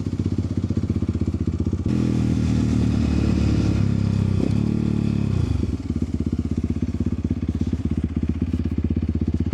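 Vehicle engine idling, then revved up about two seconds in and held for a few seconds before dropping back to idle.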